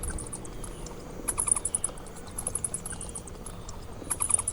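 Bat chirping: rapid trains of high-pitched squeaks and clicks, loudest in two bursts, about a second in and near the end.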